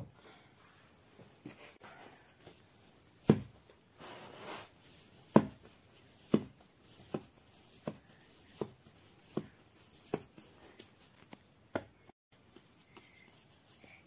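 Hands rounding and pressing balls of bread dough on a flour-dusted cloth: soft thuds of the dough being pressed and turned against the surface, coming about every three-quarters of a second from a few seconds in, with a short rubbing sound near the start of the run.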